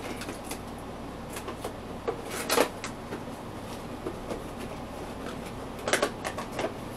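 Cardboard box and plastic packaging being handled and opened: scattered rustles and taps, a louder crinkling scrape about two and a half seconds in, and a quick cluster of knocks near the end.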